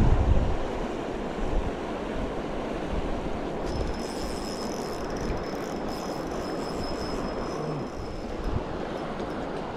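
Flowing river water, a steady rushing noise, with wind buffeting the microphone at the start. A faint, thin, high whine runs for about three seconds in the middle.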